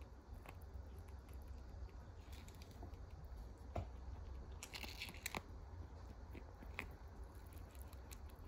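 Dwarf rabbit licking and nibbling paste from the nozzle of a small plastic tube: faint, scattered little clicks and crunches, with a quick cluster of crunching about five seconds in, over a low steady hum.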